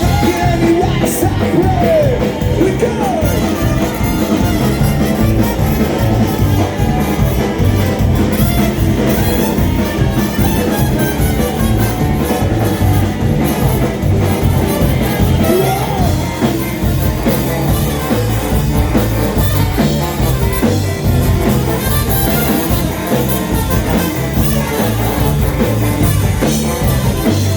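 Ska-punk band playing a song live, a full band at a steady beat with a strong low end.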